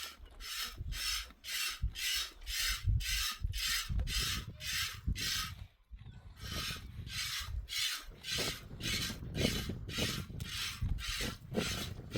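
A sheep being milked by hand, each pull squirting a jet of milk into a pail with a short hiss, in an even rhythm of about two to three squirts a second. The rhythm breaks off briefly about six seconds in, then picks up again.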